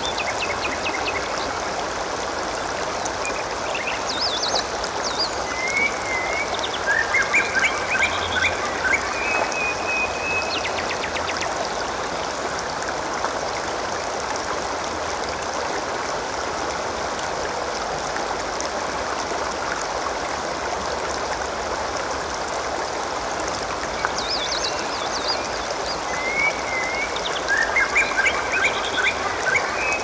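Water gurgling and splashing steadily, like a small stream. The same short phrase of chirping bird calls comes twice, about twenty seconds apart.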